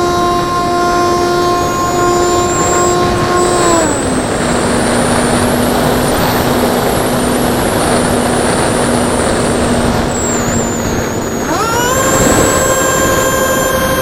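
Electric ducted fan units of a model Cessna 550 jet whining over a rushing of air. The whine drops in pitch about four seconds in as the throttle comes back, holds low, then climbs sharply near the end to a higher whine as the throttle is opened.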